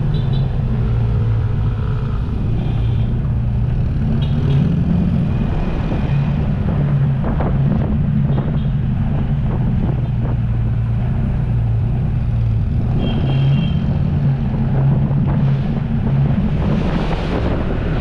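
A motor engine running steadily, with wind buffeting the microphone.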